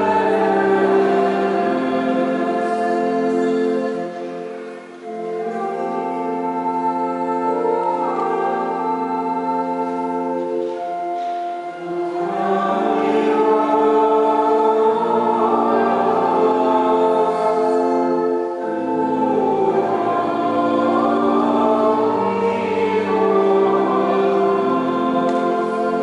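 Choir singing a slow sacred chant during Mass, in long held phrases with brief breaks about every six seconds.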